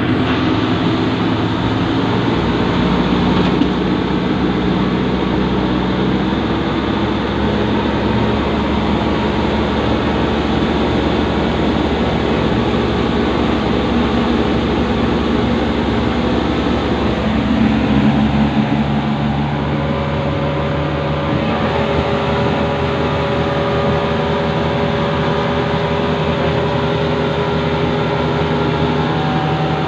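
Car engine running steadily, with its note shifting as the revs change about 6 seconds in and again about 18 seconds in.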